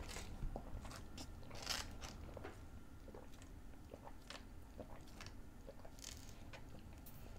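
Faint mouth sounds of sipping a soft drink through a straw: a few brief sucking hisses, swallows and scattered small mouth clicks.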